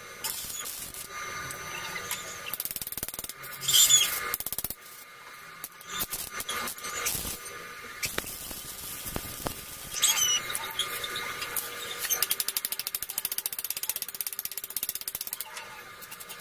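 A ratchet clicking rapidly in runs, with a couple of short, high squeaks in between.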